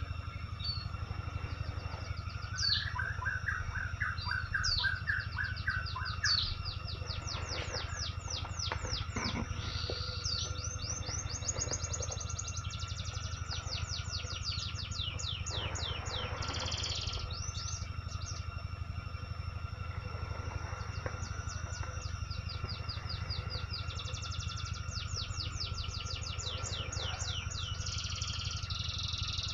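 Forest birds chirping in quick repeated series, several calls overlapping throughout, over a steady low rumble and a thin constant high tone.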